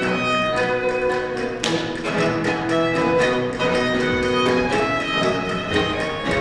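Baroque chamber ensemble playing a dance piece: baroque violin carrying the melody over a continuo of harpsichord and theorbo.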